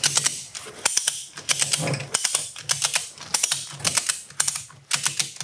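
Ratchet-strap buckle being worked lever-stroke by lever-stroke, its pawl clicking in quick pairs about twice a second as the strap is tightened.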